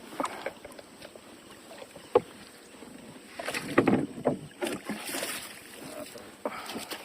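A small boat on the water being paddled: irregular water splashes and sloshing, with scattered knocks, a sharp one about two seconds in.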